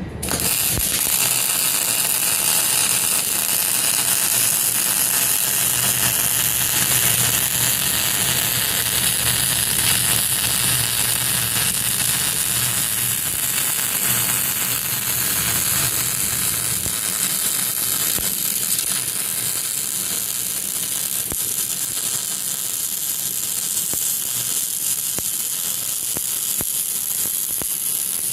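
Electric welding arc striking and crackling steadily as a high-power weld run is laid on the forged-steel body of a Detroit gearless locker.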